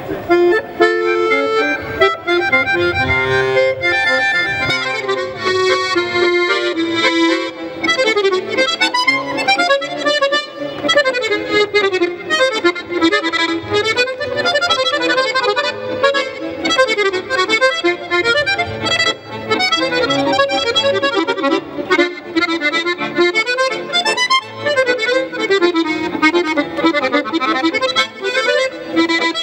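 Solo accordion playing a lively piece, with quick runs of notes.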